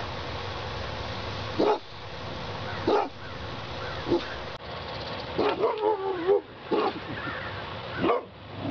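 Boxer dogs barking and yipping in short calls every second or so, with a longer wavering whine a little past the middle.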